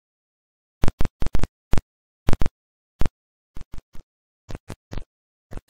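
A string of short, sharp hits at irregular spacing, cut apart by dead silence: an edited logo-intro sound effect. The first eight hits are loud, the later ones fainter.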